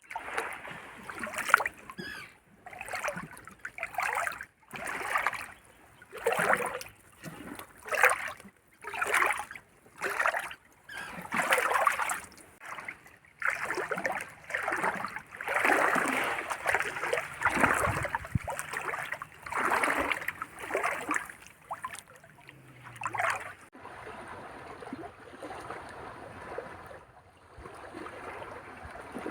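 Small sea waves lapping and splashing at the water's edge, a short splash about every second. Near the end they settle into a softer, steady wash.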